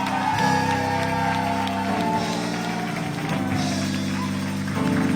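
Church music: sustained chords, held and changing about every second and a half.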